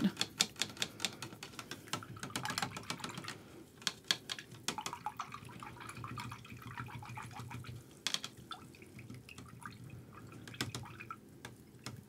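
A run of light, rapid taps and clicks, dense for the first few seconds and then sparser, with a few sharper clicks scattered later.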